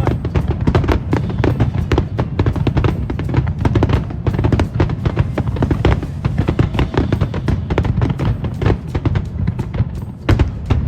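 Fireworks going off in a rapid, continuous barrage of many bangs a second over a steady low rumble.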